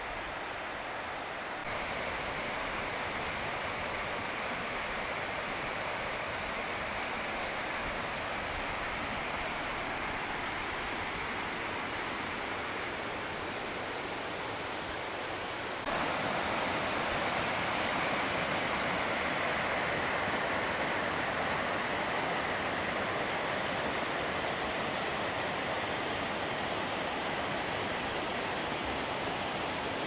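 Mountain creek rushing over rocky cascades: a steady roar of white water, getting suddenly louder about halfway through.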